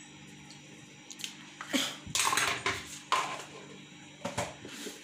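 Metal spoon clinking and scraping against a pressure cooker: a run of short clinks with a longer scrape in the middle.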